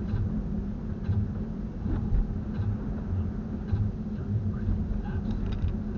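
A steady low rumble that wavers unevenly in level, with a few faint clicks on top.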